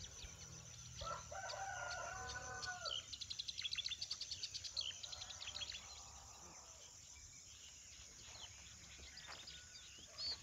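A rooster crows once, a single held call about a second in, followed by small birds chirping in a rapid run of trills and scattered calls. A steady high-pitched hum runs underneath.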